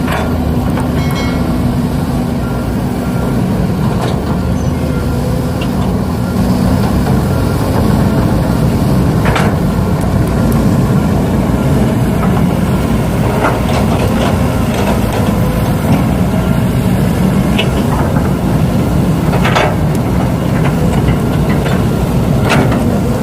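Heavy-equipment engine running steadily, with scattered clicks and knocks over it.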